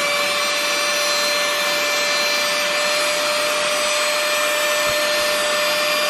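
Small cordless handheld vacuum cleaner running steadily: one even motor whine over a rushing hiss of air.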